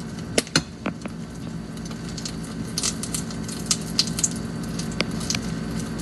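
Beaten egg frying in hot oil in a frying pan, with scattered irregular pops and crackles of spitting oil over a steady low hum.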